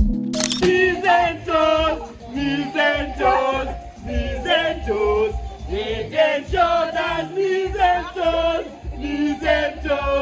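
A group of voices singing together, with a deep pulse under the voices.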